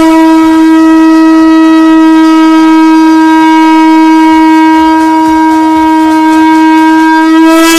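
Conch shell (shankh) blown in one long, loud, steady note, rich in overtones.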